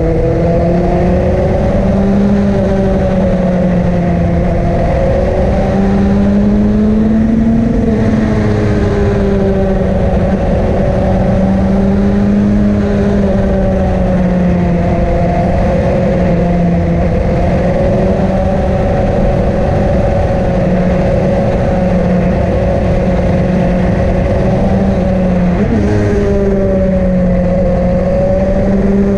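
A vehicle's engine runs steadily under load, heard onboard while climbing a mountain road, over a rushing wind and road noise. Its pitch rises and falls gently with speed, with a short drop and pick-up near the end.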